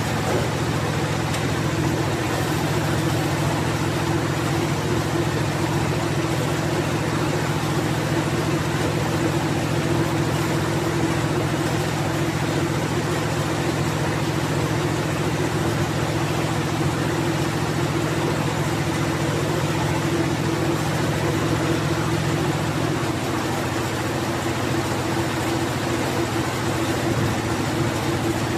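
Diesel engine of a combined hay baler and wrapping machine running steadily, its low note shifting slightly a few seconds before the end.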